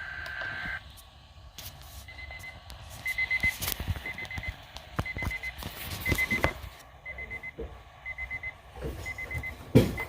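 An electronic alarm beeping: groups of four quick high beeps, repeating about once a second, with a few sharp clicks and knocks among them. A steady two-pitch tone stops just before the first second.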